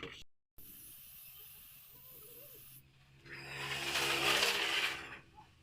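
A steady hiss starts about three seconds in and lasts almost two seconds, over a faint low hum.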